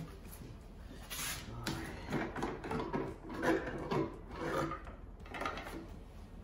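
Rubbing, scraping and light knocks of rubber fuel hoses being worked loose in a red plastic gas can, in irregular bursts.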